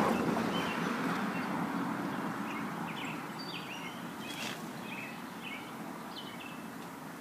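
Small birds chirping repeatedly over the noise of a passing vehicle that fades steadily away.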